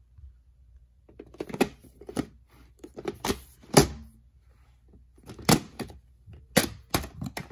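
Plastic VHS clamshell case being handled, turned over and opened: a series of sharp clicks and knocks of hard plastic, starting about a second in, with the loudest knock near four seconds in and several more snaps towards the end.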